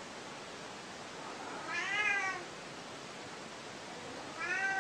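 A domestic cat meowing twice: two short calls that rise and then fall in pitch, the first about two seconds in and the second near the end.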